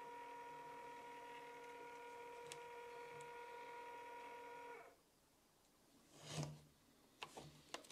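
Handheld label maker printing a tape label: its feed motor gives a steady, quiet whine that cuts off suddenly a little under five seconds in. A short handling noise and a few faint clicks follow near the end.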